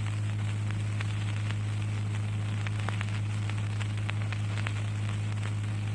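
Background noise of the recording: a steady low electrical hum under an even hiss, with scattered small clicks and crackles.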